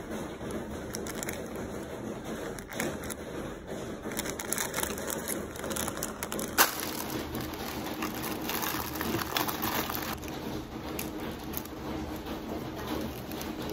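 Plastic instant-noodle packaging and foil seasoning sachets crinkling and rustling as they are handled, with many small crackles and one sharp click a little past halfway. Near the end a small sachet is torn open.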